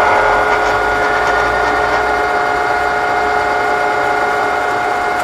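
Doall radial drill's geared head running its spindle at 854 RPM: a steady, loud gear whine of several even tones over the rumble of the drive.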